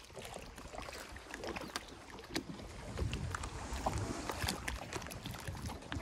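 Wind rumbling on the microphone, stronger in the second half, with scattered light ticks and taps.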